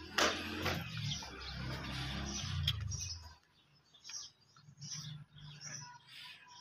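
Short, faint bird chirps. For the first three seconds or so there is also a steady low hum, which cuts off, with a loud burst of noise just after the start.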